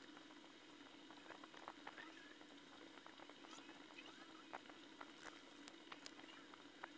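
Faint wet squishing and small crackles of a cotton swab working polishing paste over a coin's face, over a steady low hum.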